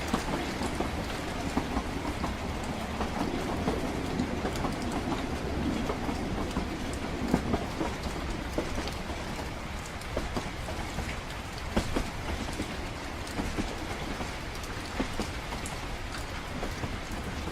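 Train running steadily, a low rumble with irregular sharp clicks from the wheels and carriage, mixed with rain falling.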